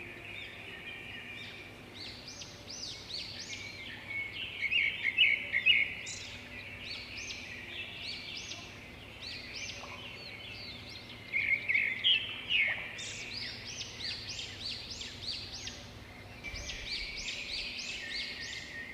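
Birds chirping over a faint steady background hum: many short, high chirps coming in clusters, loudest about five seconds in and again about twelve seconds in.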